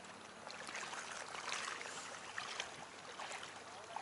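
Faint water lapping at the bank: a soft hiss with small irregular splashes, a little louder in the middle.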